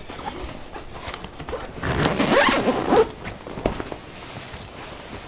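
Zipper on the door of an Eskimo FatFish 949i insulated ice fishing shelter being pulled open, loudest from about two to three seconds in.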